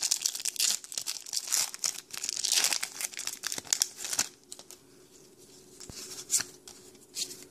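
Pokémon booster pack's foil wrapper crinkling and tearing open, a dense crackle that lasts about four seconds. After that it drops to quiet handling of the cards, with a couple of soft ticks near the end.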